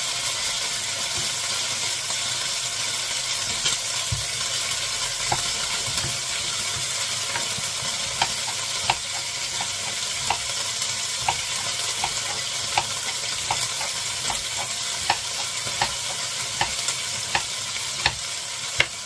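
Gulas (eel-shaped surimi) sizzling steadily in a hot frying pan. Over it, from about five seconds in, come light taps at roughly even spacing, a bit less than one a second, as a cucumber is peeled and cut.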